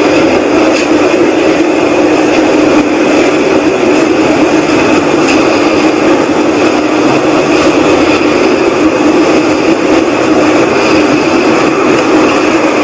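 An unexplained loud, steady whooshing rumble filling the air, halfway between a rush and a rumble, with no change or break.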